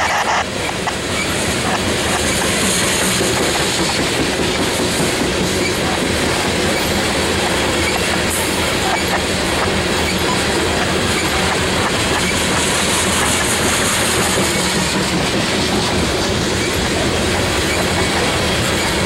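Coal hopper cars of a long freight train rolling past close by: a steady rumble of steel wheels on rail with rapid clicking. A high hiss swells twice.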